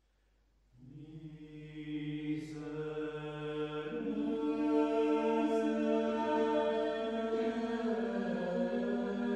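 Small mixed choir of women's and men's voices singing a cappella, entering about a second in with sustained chords that shift around four seconds in.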